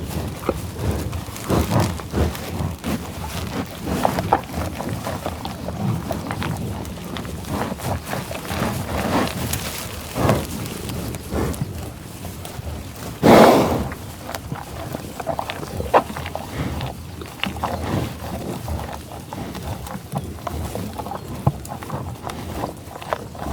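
Buffaloes growling and mooing: a string of short, irregular grunts, with one loud call lasting about a second midway.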